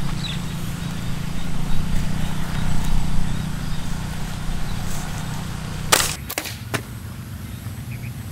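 Homemade wooden slingshot's rubber bands released with one sharp snap about six seconds in, followed by a few lighter clicks, over a steady low background rumble that stops soon after the snap.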